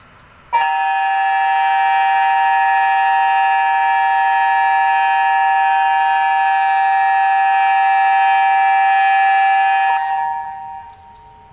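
Indonesian tsunami early-warning (InaTEWS) siren sounding a steady, unwavering chord of several tones for about nine and a half seconds during a test of the warning system. It starts abruptly about half a second in and dies away over about a second near the end.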